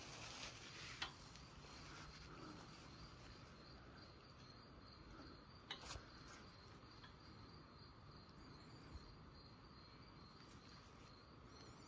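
Faint, steady, high-pitched insect chirping, an evenly pulsing trill, with two soft clicks, about a second in and just before six seconds.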